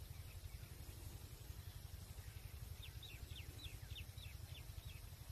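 A small bird giving a quick series of about eight short, high, falling chirps, starting a little under three seconds in, over a low steady rumble.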